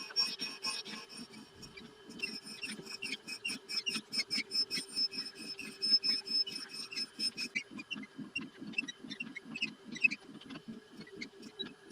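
Surface grinder's abrasive wheel grinding a cast iron table, fitted with a wheel not made for cast iron. It gives a steady hum with a fast even pulsing and fine crackling contact noise, and a high whine that drops out about seven seconds in.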